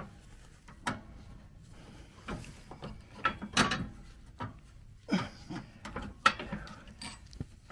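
A wrench working a nut and bolt on a riding lawnmower's front steering linkage: scattered metallic clicks and clinks, irregular and about a second apart.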